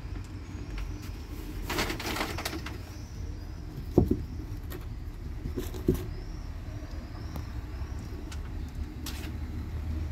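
Street ambience: a steady low traffic rumble with small birds chirping. Two sharp knocks about two seconds apart come from paperbacks being handled on a book shelf.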